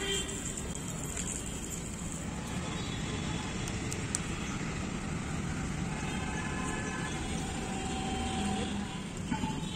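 Steady background hum of road traffic.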